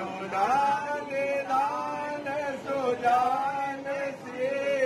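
A man's voice chanting Hindu wedding mantras in a sing-song, holding long notes that bend up and down.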